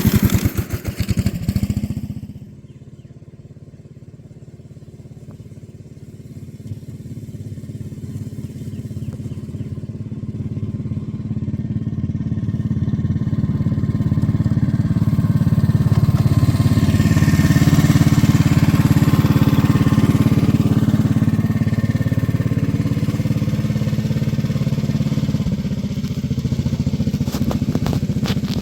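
Small engine of a backyard-railroad locomotive running with a steady rapid pulse. It drops off sharply about two seconds in, then grows steadily louder over the next dozen seconds and holds.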